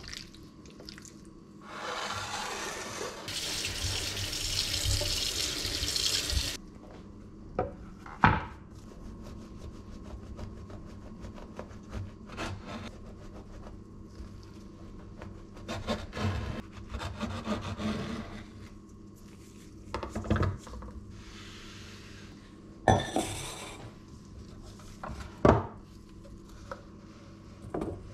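Kitchen tap running into a stainless steel sink for about five seconds, then a knife cutting on a wooden chopping board: short scraping strokes and several sharp knocks of the blade and food on the board.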